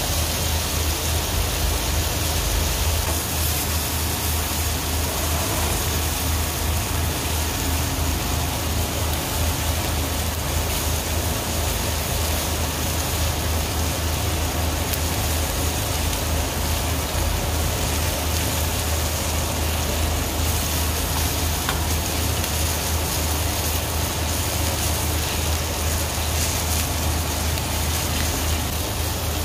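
Beef sirloin steak sizzling steadily in a hot pan, over a steady low hum.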